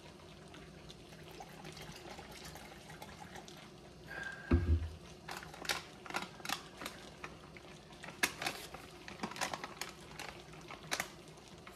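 Cold water poured into a plastic ration drink pouch to bring it up to the fill line, with a thump about four and a half seconds in. After it, the plastic pouch crinkles and crackles in short bursts as it is handled.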